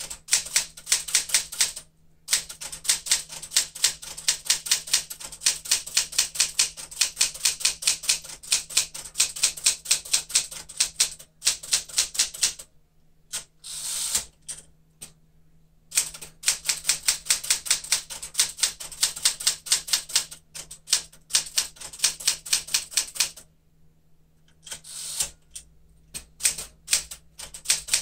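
1975 Smith-Corona Galaxie Twelve manual typewriter being typed on at speed: rapid runs of crisp type-bar strikes, several a second. The typing breaks twice, once near the middle with a short swish between the runs.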